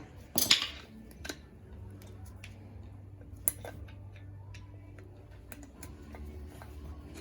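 Scattered light metallic clicks and a short scrape from hand tools working on the wheel bearing and its retaining snap ring, with one sharper click about three and a half seconds in.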